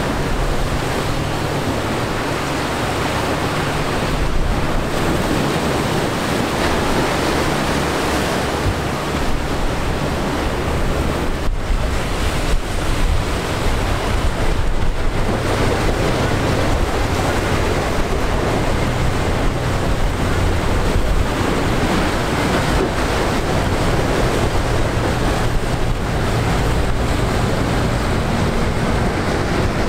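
Choppy sea and surf washing in the inlet, with wind buffeting the microphone. Underneath, a passing boat's engine makes a steady low hum.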